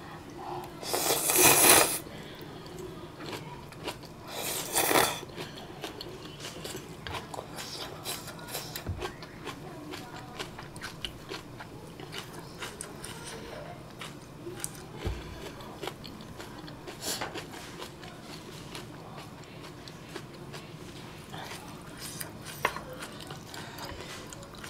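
Close-up mouth sounds of a person eating spicy ramen: two loud slurps of noodles, about a second in and again around five seconds in, then quieter chewing with small wet clicks.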